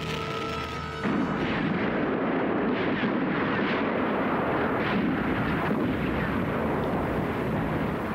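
Held notes of background music, cut off about a second in by a loud, dense din of battle: artillery fire and explosions in a continuous wash, with repeated blasts standing out.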